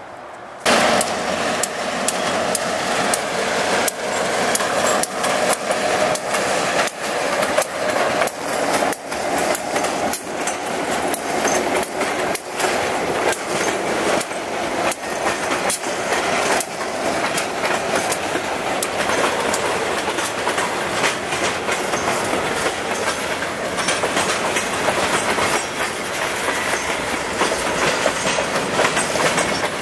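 Freight train rolling past close by, its diesel locomotives and then freight cars going by: a steady rumble with a rapid clickety-clack of wheels over the rail joints. It starts abruptly about half a second in, after a quieter moment.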